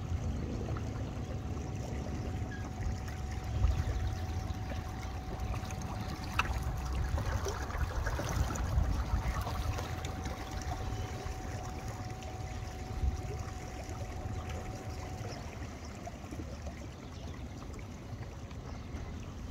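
Wind buffeting the microphone in gusts over the sound of small waves lapping. A faint steady tone holds for several seconds in the middle.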